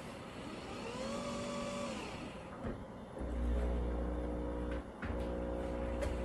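Capsule coffee machine brewing after its button is pressed: a motor whine rises and levels off, then a steady low pump hum starts about three seconds in, dropping out briefly near the five-second mark before going on.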